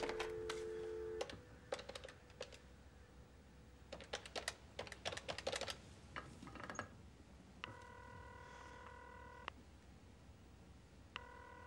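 Corded desk telephone: a click, then the dial tone humming for about a second, then a run of keypad button clicks as a number is dialled. After that the ringing tone sounds twice in the earpiece, each ring about two seconds long.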